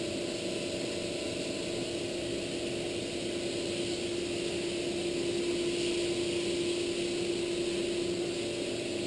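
Steady machine hum from operating-room equipment, with one constant mid-pitched tone over an even noise and no breaks.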